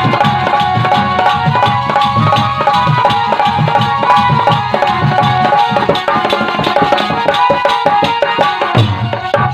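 Instrumental interlude of Indian folk music: a hand drum keeps a fast, steady beat under a sustained melodic instrument line.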